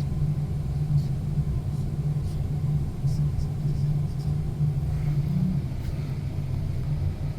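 A steady low rumble of background noise, with a few faint ticks over it.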